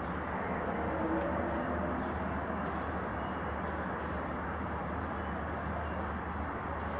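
Steady outdoor background noise: a continuous low rumble, with a few faint short high chirps over it.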